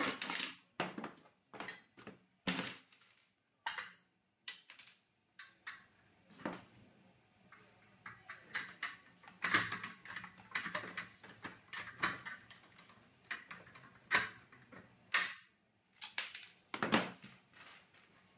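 Hand pop-rivet gun riveting steel trunking: an irregular run of sharp clicks and metallic knocks from the gun being squeezed and the rivet mandrels snapping off, mixed with the clatter of the steel pieces being handled.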